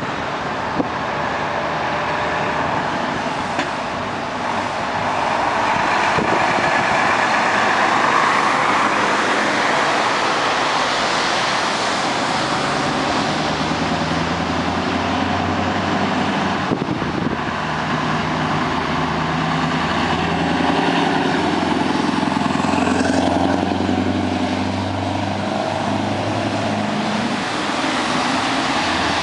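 Heavy diesel trucks driving past on a road, with steady tyre and road noise. From about halfway through, a low, even engine drone joins in as the trucks draw near.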